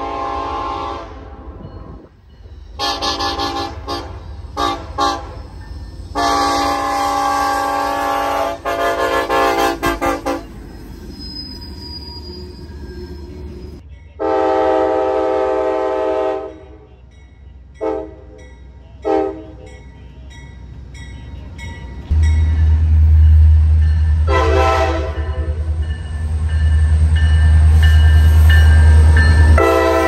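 Train air horn sounding a series of blasts: short toots, long blasts of several seconds, and brief taps in between. A loud deep rumble from the locomotive comes in about two-thirds of the way through.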